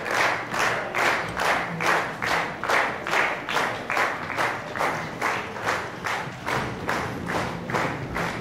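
A crowd clapping in unison, a steady beat of about three claps a second.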